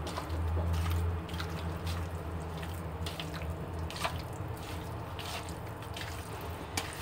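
Hands squishing and turning raw chicken pieces with marinade spices in a plastic bowl: irregular wet squishing and small clicks, over a steady low hum.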